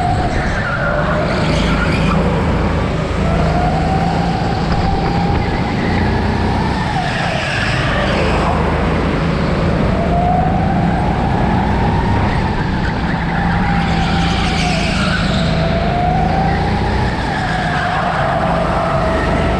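Go-kart's motor heard from the driver's seat, its pitch rising and falling in long sweeps as it speeds up on the straights and slows for the corners, with short bursts of tyre squeal in the turns.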